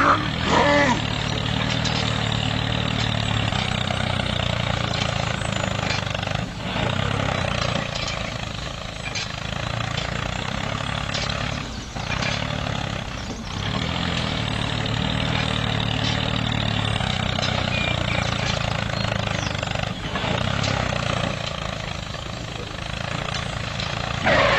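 Tractor engine running steadily at an even speed, dipping briefly a few times.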